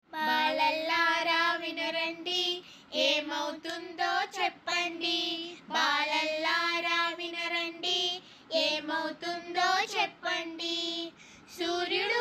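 A woman singing a Telugu children's rhyme alone, in short drawn-out phrases with brief pauses between them.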